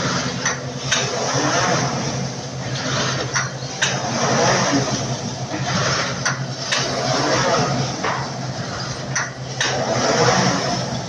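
Honeycomb paperboard cutting and stacking machine running: a steady motor hum under the noisy whir of its rotary slitting knives and rollers, with pairs of sharp clicks about every three seconds.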